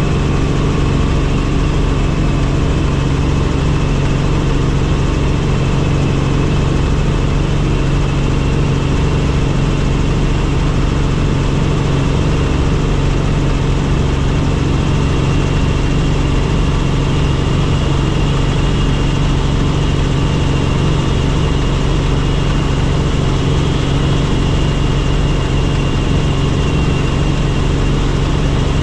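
Helicopter in flight: steady engine and rotor noise, a low hum with a faint high whine over it.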